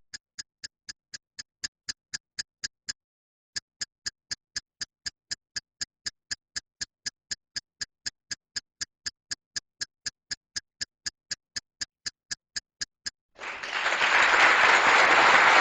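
A clock-ticking sound effect, even ticks about four a second with a short break about three seconds in. Applause takes over near the end.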